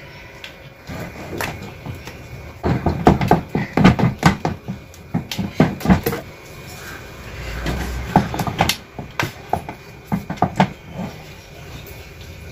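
A metal spoon stirring thick, stiff wheat-starch paste (kurdai chik) in a large metal pot, with irregular knocks and scrapes of the spoon against the pot. The knocks come in busy clusters in the middle of the stretch as the heavy paste is worked while it cooks and thickens.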